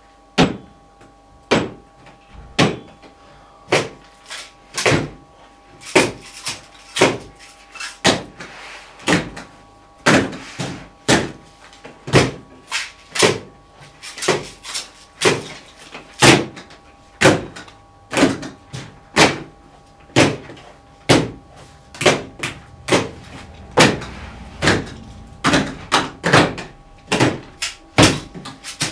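A rhythmic series of sharp knocks and slams, about one a second at first, then coming faster and overlapping, up to about two a second.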